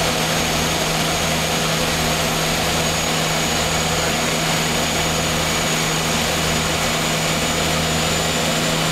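DHC-6 Twin Otter's two PT6A turboprop engines and propellers running steadily, heard inside the cockpit: a constant low propeller drone with a thin high turbine whine over it.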